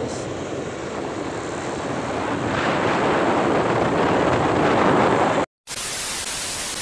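Steady road and wind noise from a moving car, growing louder over the first five seconds. It cuts out suddenly about five and a half seconds in, and a loud even hiss of TV static follows as a video transition effect.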